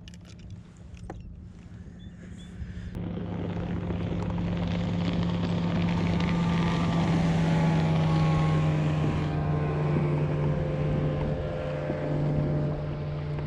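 Motorboat engine running across open water: a steady drone that grows louder a few seconds in, is loudest just past the middle with its pitch slowly falling, then eases off a little.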